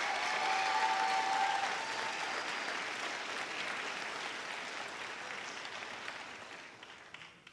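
Audience applauding in a large hall, loudest in the first couple of seconds and then slowly dying away toward the end.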